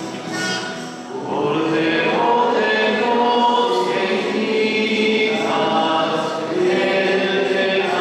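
A choir and congregation singing a hymn together in a church, in long held notes.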